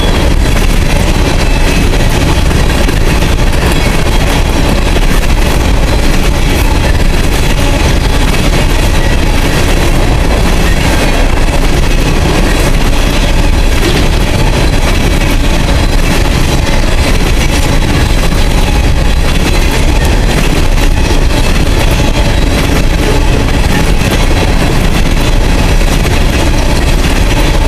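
Empty coal gondolas of a freight train rolling past close by: a loud, steady rumble of steel wheels on the rails, with repeated clicks as the wheels cross rail joints.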